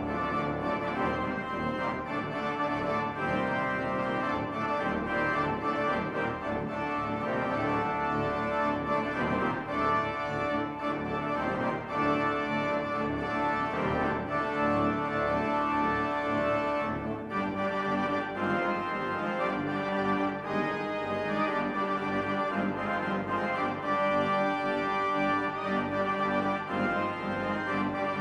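Instrumental music score with held, organ-like chords, changing in texture about two-thirds of the way through.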